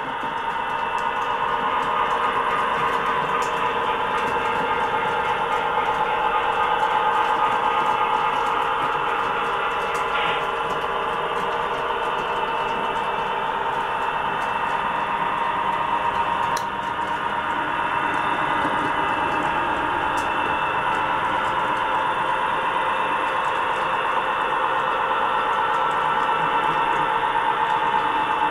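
Sound-equipped (DCC) HO scale EMD F3A model diesel locomotive running along the track, its onboard speaker playing a steady diesel engine sound.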